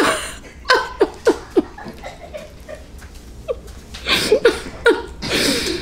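Close-up eating sounds from a saucy chicken wing being bitten and sucked: a run of short wet smacks and squelchy mouth noises, some with a brief voiced 'mm', and a breathier sucking sound near the end.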